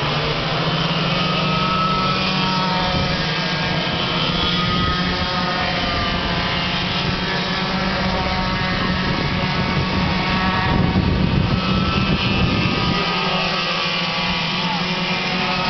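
A pack of go-karts racing, several small engines running at high revs together with their pitches wavering. It gets louder about two-thirds of the way through as karts pass close.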